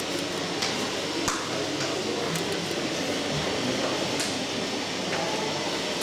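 Steady room noise of an aquarium hall, the even rush of water and aeration running through the tanks, with a few light clicks scattered through it.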